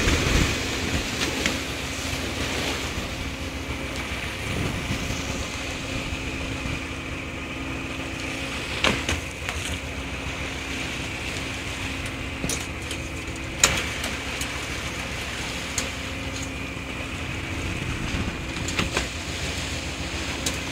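Fishing boat's engine running steadily with a constant hum, broken by a few sharp knocks.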